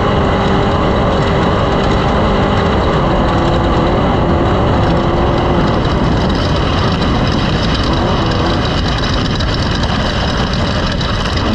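An engine running loudly and steadily, with a wavering low tone in the first half.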